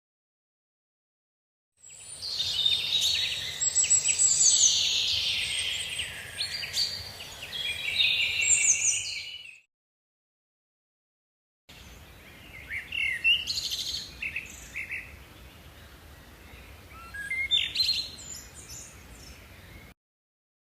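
Birds chirping and singing in two separate stretches with about two seconds of silence between them: a dense, busy chorus first, then sparser, quieter calls over a faint background hiss.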